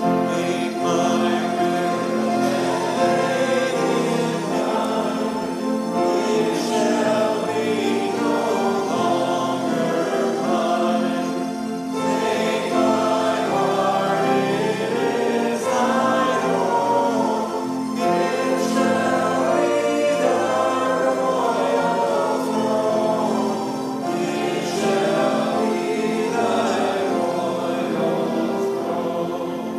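Congregation singing a hymn together, in phrases with short breaks about every six seconds.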